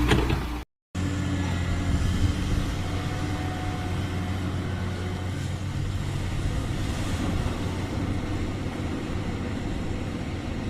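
Heavy excavator's diesel engine running steadily, a low even drone.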